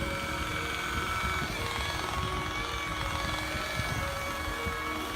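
Rotary buffer running steadily as it works polishing compound over a boat panel, under background music.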